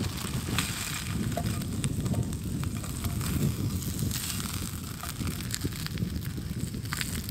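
Pieces of beef offal sizzling and crackling in a frying pan over a camp stove, over a steady low rush. A plastic wrapper crinkles and tongs click a few times as a block of noodles is laid into the pan.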